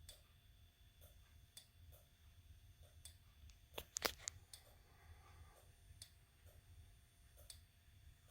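Near silence with faint, irregular ticks and a brief cluster of sharper clicks about four seconds in.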